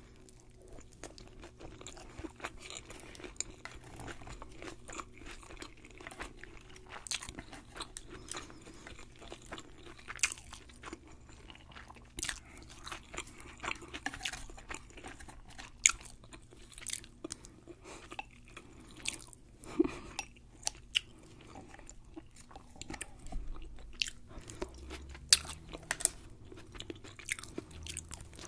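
Close-miked chewing of crisp deep-fried sushi roll, with many sharp, irregular crunches, and a bite of seaweed salad being chewed near the end.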